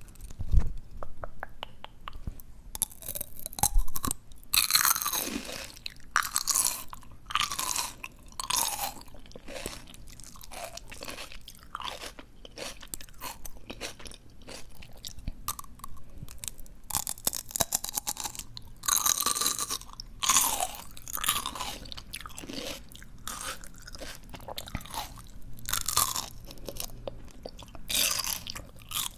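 Close-miked crunchy chewing of fresh ice plant stems, wet crisp crackles coming in several bouts of bites and chews.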